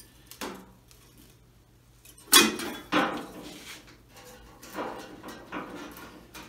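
Steel sheet-metal strip and pipe being handled on a steel workbench: two sharp metallic clanks about two and a half and three seconds in, then lighter knocks and clatter as the strip is fitted.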